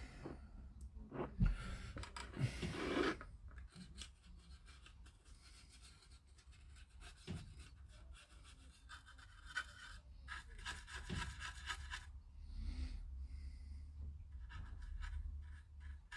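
Light scratching and rubbing of an applicator on plastic model parts as an oil-stain weathering is worked onto them, coming in short irregular strokes, with a couple of louder knocks and rustles in the first few seconds.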